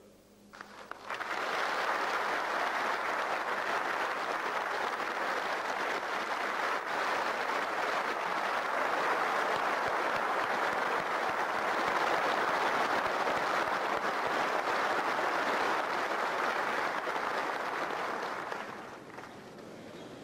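Large audience applauding, a standing ovation, with steady dense clapping that starts about a second in and dies away near the end.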